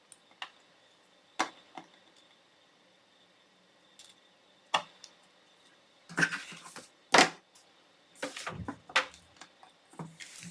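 Card-making supplies handled on a craft table: scattered light clicks and taps, then a stretch of paper rustling and handling with a sharp knock about seven seconds in.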